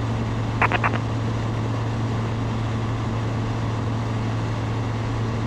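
Zenith STOL CH 701's 100-hp Rotax 912ULS engine and propeller at cruise power, a steady drone mixed with wind noise, with three short clicks about a second in.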